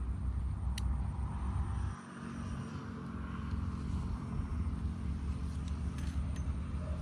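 Airplane passing overhead, a steady low rumble.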